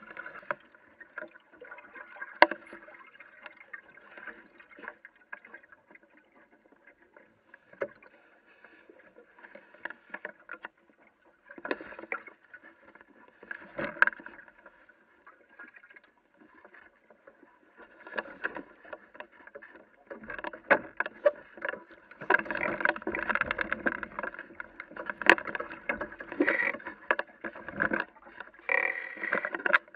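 Water lapping and splashing against the hull of a small sailing dinghy under way, with occasional sharp knocks. It grows busier and louder over the last third.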